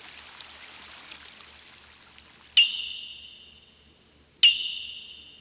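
Two strikes of a small high-pitched bell or chime, about two seconds apart, each ringing and fading over about a second and a half. Before them a faint hiss of running water fades away.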